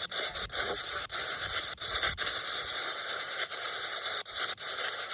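Spirit box radio scanner sweeping through stations: steady hissing static, cut by brief dropouts two or three times a second as it jumps from frequency to frequency.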